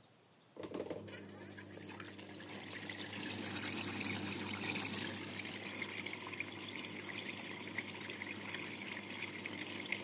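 Electrolux top-loading washing machine starting up on its rinse program about half a second in: a steady electric hum with water running and splashing, getting a little louder.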